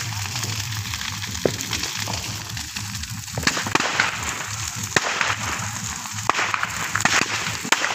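Large bonfire of dry branches and brush burning, with a steady rush of flame and frequent sharp, irregular crackles and pops from the wood.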